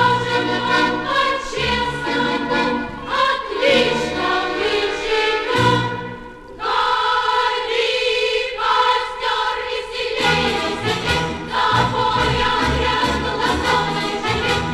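Choir singing a Soviet pioneer song with instrumental accompaniment, played from a vinyl record. There is a short break between phrases about six and a half seconds in, and the bass accompaniment drops out for a few seconds after it before returning.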